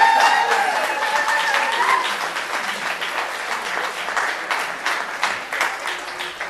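Audience applauding, the clapping slowly dying away, with a held high tone fading out during the first two seconds.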